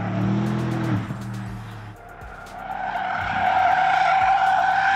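Porsche Panamera Turbo S Sport Turismo's twin-turbo V8 pulling with rising pitch, then easing off about a second in. From about halfway, the tyres squeal steadily as the car corners hard, louder than the engine.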